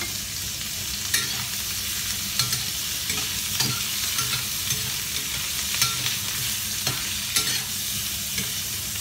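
Roasted duck pieces sizzling in hot oil in a wok, with a metal spatula scraping and clinking against the pan about once a second as they are stirred.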